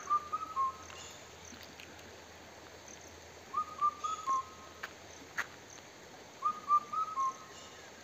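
Indian cuckoo calling: a whistled four-note phrase, the last note lower, repeated three times about three seconds apart. In the hills of Uttarakhand the call is heard as 'kafal pako', 'the kafal fruit is ripe'.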